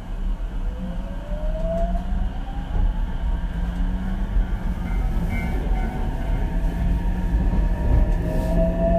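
Cab-interior running sound of Ichibata Electric Railway 7000 series railcar 7001 gathering speed: the low rumble of wheels on track, with the whine of the inverter-fed traction motors rising in pitch about a second in and again near the end.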